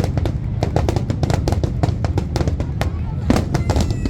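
Fireworks display: shells bursting in rapid succession, many sharp bangs and crackles over a continuous low rumble, with a few whistles falling in pitch near the end.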